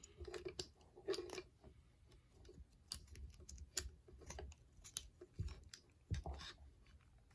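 Faint, irregular clicks and ticks of the plastic joints and parts of a Transformers Kingdom Rhinox action figure being twisted and pressed into place by hand, with a couple of dull handling bumps near the end.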